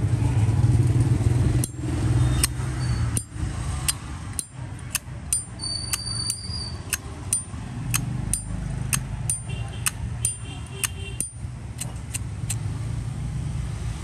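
Metal lid of a Zippo lighter clicking open and shut over and over, about two sharp clicks a second, over a steady low rumble of road traffic.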